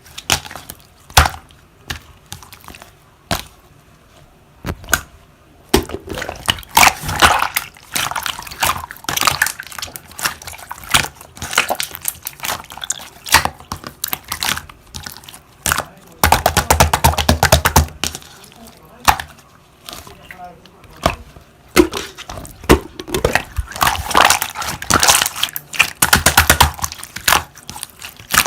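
Slime being squished and pressed by hand, making bursts of rapid clicking and crackling, with louder, denser stretches about midway and near the end.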